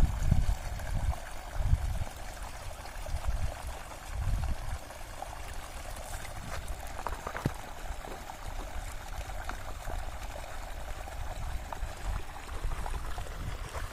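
Water pouring out of the end of a long irrigation pipe into a flooded rice paddy: a steady rushing splash. Several low rumbles come in the first five seconds.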